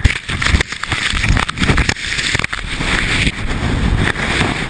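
Loud rushing, scraping noise with frequent sharp knocks: avalanche snow churning against and over a headcam and its microphone.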